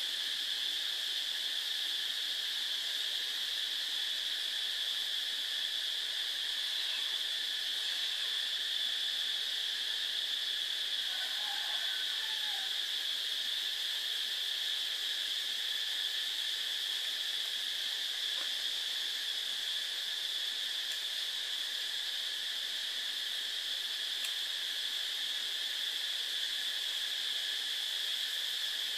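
Steady high-pitched insect chorus, an unbroken even drone.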